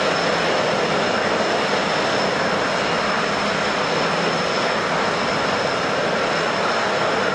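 Boeing 777-200ER's Pratt & Whitney PW4000 turbofans running steadily on the ground: a constant high whine over a broad jet rush, with no rise or fall.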